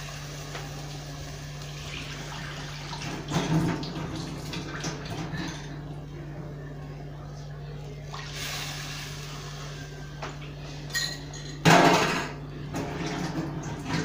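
Liquid bubbling in a curry pot over a steady low hum, broken twice by a short louder clatter of the pot: once about three and a half seconds in and again near the end.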